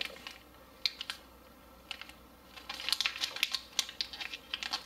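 Irregular crinkling clicks from the plastic MRE flameless ration heater bag handled in the hands, just after water has been added to start the heater. The clicks come in a few short clusters, thickest near the end.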